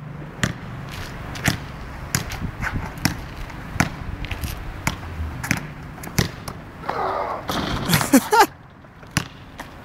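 Basketball bouncing on an asphalt court, a sharp bounce roughly every second. A voice calls out about seven seconds in.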